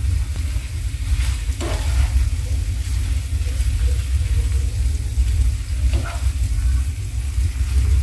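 Spaghetti being tossed and stirred with tongs in a sizzling nonstick frying pan, with two brief scrapes or clicks of the tongs against the pan, about one and a half seconds and six seconds in. A steady low rumble runs underneath and is the loudest part.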